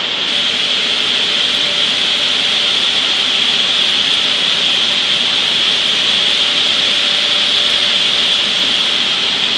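Maize flour mill machinery running: roller mills and the air-conveying fans and cyclones make a steady, loud machine noise with a strong high hiss and a faint steady tone underneath.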